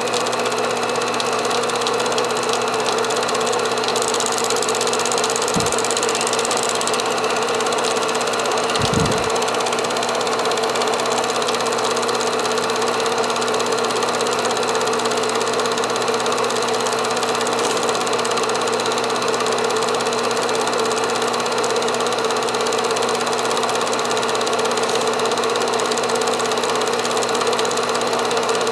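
Home-movie film projector running steadily, its motor and film mechanism making a continuous mechanical whir.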